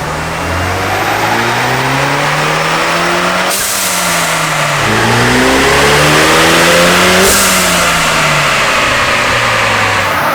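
2021 Ford Bronco Badlands engine at full throttle through an XForce Varex valved catback exhaust, its valve open, during a dyno pull: the pitch climbs, drops sharply about three and a half seconds in as the transmission shifts, climbs again, then falls away after about seven seconds as the throttle is released.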